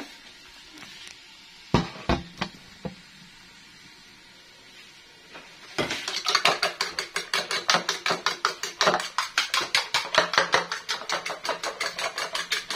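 Eggs being beaten with a fork in a bowl: a fast, even clicking of the fork against the bowl that starts about six seconds in. Before it come a few sharp knocks about two seconds in.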